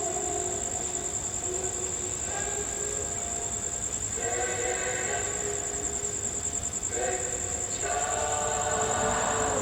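Many voices chanting together in unison, holding long, level tones that swell and re-enter every few seconds, with a steady high-pitched whine running underneath.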